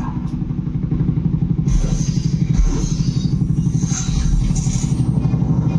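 Action-film soundtrack played loud through a 5.1 home-theatre amplifier and speakers, heard in the room: a dense, fast-pulsing low rumble like vehicle engines. Brighter hiss and clatter come in about two seconds in.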